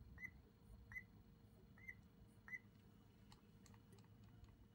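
Primer bulb on a small two-stroke brushcutter's carburettor being pumped by hand: four short rising squeaks about a second apart, followed by a few faint clicks of handling.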